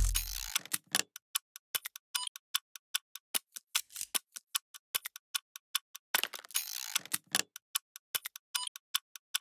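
Electronic intro sound design: a bass-heavy music hit cuts off about half a second in, then rapid, irregular clicks and ticks follow. About six seconds in there is a brief denser crackle.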